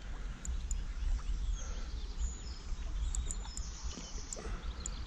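Wind buffeting the microphone in a steady low rumble, with a few faint, high bird calls about two seconds in.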